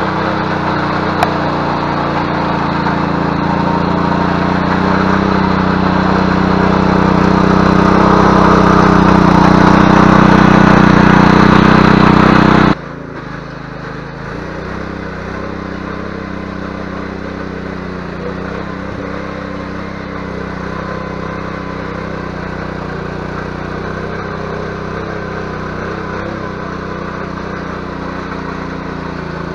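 Ruris 731K walk-behind tiller engine running under load as its tines churn soil, growing louder over the first dozen seconds. About 13 seconds in it drops suddenly to a quieter, steady running.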